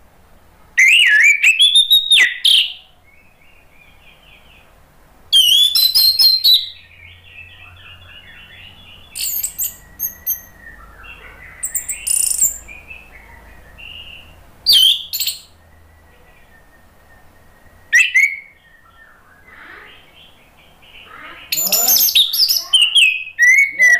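Orange-headed thrush singing: loud bursts of rich whistles and quick sliding notes, about six phrases separated by short pauses, with softer chattering in between.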